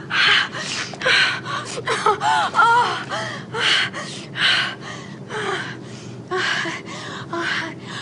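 A person gasping and panting in quick breathy bursts, about two a second, with a few short moans about two to three seconds in. The shuddering gasps follow a sneeze and are played as sexual pleasure.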